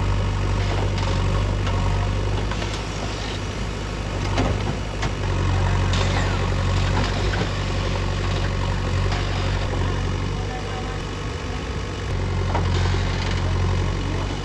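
Heavy diesel engine of a backhoe loader or tractor running continuously, its note swelling and easing a few times under load, with a few scattered knocks and clanks.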